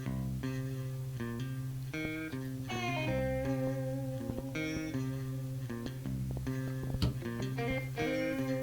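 Background music: a guitar-led song playing an instrumental passage, plucked guitar notes over a steady bass line.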